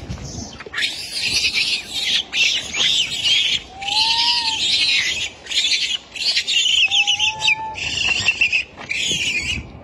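Baby macaque squealing in a rapid series of shrill, high-pitched bursts, each under a second long.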